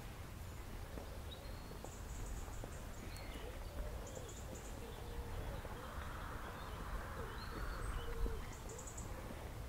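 Outdoor birdsong: short high chirps and trills, with a run of low, repeated cooing calls through the middle. A soft rushing sound swells and fades around the middle, over a steady low rumble.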